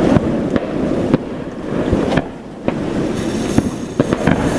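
Scattered firework pops and cracks over a steady rush of wind on the microphone. From about three seconds in, a lit firework fuse hisses as it sparks.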